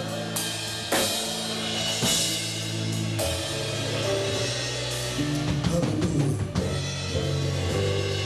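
Live church worship band playing with no singing: sustained keyboard chords over bass, with a drum kit marking time on kick drum and cymbals.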